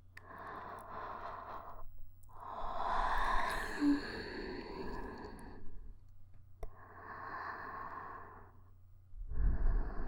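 A woman's slow breathing, close on a KU100 binaural dummy-head microphone: four separate breaths, the second a long sigh-like exhale. The last breath is louder, with a low rumble.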